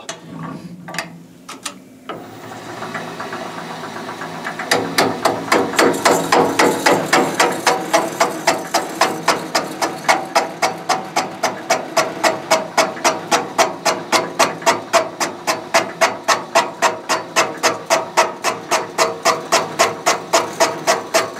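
VGS-20 seat-and-guide machine spinning a bowl-hog cutter into a big block Chevy cylinder head's intake bowl, rough-cutting metal. The spindle starts up about two seconds in. From about five seconds the cut chatters in an even rhythm of about three knocks a second.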